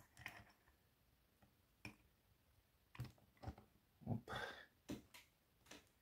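Faint, scattered clicks and knocks as a metal BKS Kurzzylinder lock cylinder is handled and taken out of a small bench vise. A short scraping noise comes about four seconds in.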